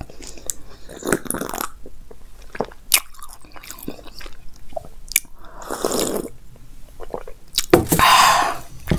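Close-miked eating sounds from a lavalier mic: chewing and sharp mouth clicks, with a few short, breathy sips of buttermilk from a glass.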